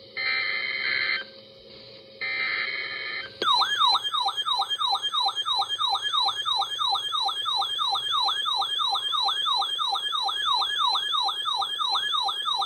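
Emergency Alert System header: two harsh digital data bursts about a second long, a second apart. Then, about three and a half seconds in, a loud siren-like alert tone begins, sweeping down in pitch about three times a second.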